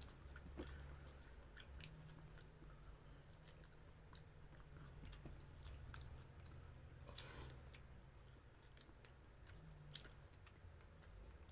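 Faint chewing and small mouth sounds of people eating chicken inasal and rice, with scattered soft clicks.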